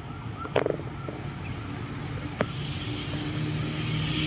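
An engine droning steadily and growing louder in the second half, as a motor vehicle draws nearer. Two sharp clicks sound about half a second and two and a half seconds in.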